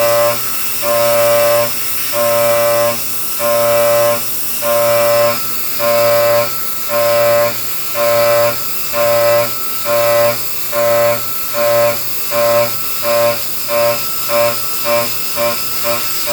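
Milling cutter whining in repeated bursts as it engages the workpiece pass after pass, each burst at the same pitch; the bursts come faster and shorter toward the end, over a steady high hiss.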